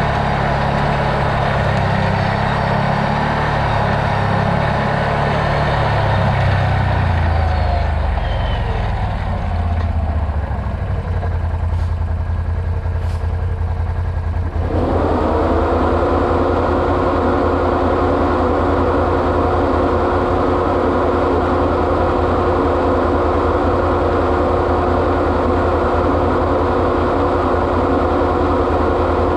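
An off-road vehicle's engine running as it drives, its low note shifting in pitch. About halfway through, the sound changes abruptly to a steady whirring hum with one held tone.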